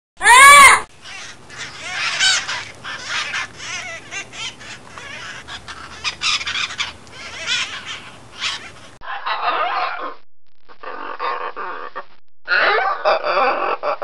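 Parrots calling: one loud screech at the very start, then a dense run of shrill, bending squawks and chatter. About nine seconds in, a more muffled recording of parrot calls follows in three bursts.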